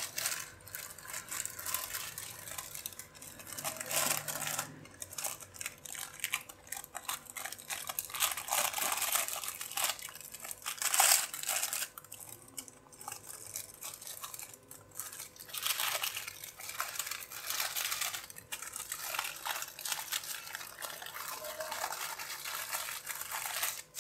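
Butter paper crinkling and rustling in irregular bursts as a filled pita wrap is rolled up tightly in it by hand.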